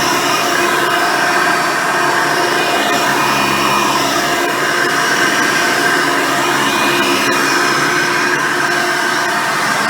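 Hoover Decade Elite Soft & Light upright vacuum cleaner running steadily while cleaning, with its single-row brush roll spinning: a constant rush of air with a steady motor whine.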